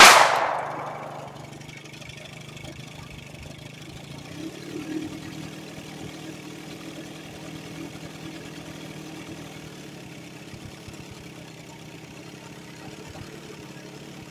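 A loud splash in the water right at the start, fading over about a second and a half, then a boat's outboard motor idling steadily.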